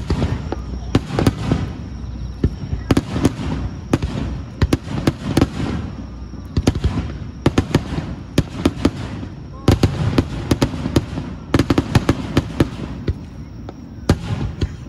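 Aerial fireworks going off in a dense, irregular barrage: sharp bangs several times a second over a continuous low rumble.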